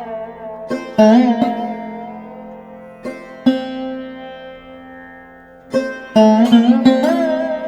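Instrumental music on a plucked string instrument: single notes and short clusters struck every second or two, each ringing out and fading, over a steady low drone.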